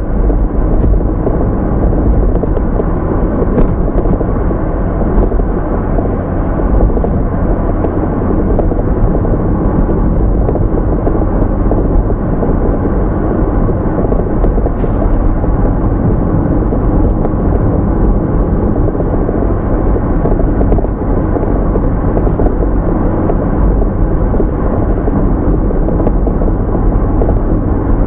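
Steady road and tyre rumble of a car being driven, mixed with engine and wind noise, as picked up by a dashcam.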